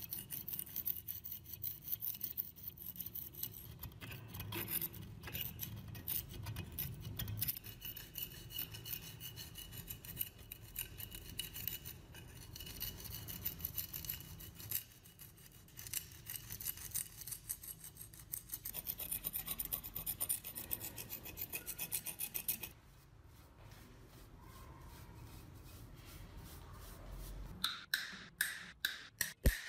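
Metal spatula scraping caked dirt and rust off the cast-iron body of an antique meat grinder, in rapid repeated strokes. The scraping goes quieter about three-quarters of the way through, and a run of sharp clicks follows near the end.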